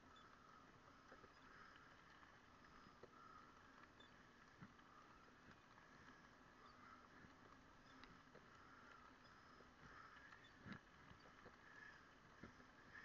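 Near silence: a faint steady hum with scattered small clicks and knocks, typical of a camera rattling in its mount as it moves over the path. The loudest knock comes about three-quarters of the way through.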